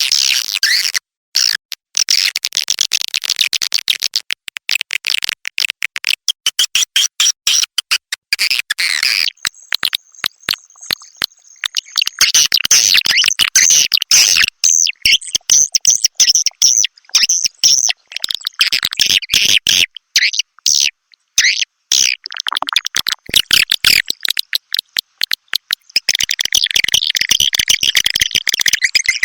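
Edible-nest swiftlet lure recording: rapid, high-pitched chirping and twittering of swiftlets, broken by many short gaps, played as a 'calling sound' to draw swiftlets into a nesting house. A thin steady high tone runs alongside for a couple of seconds near the middle.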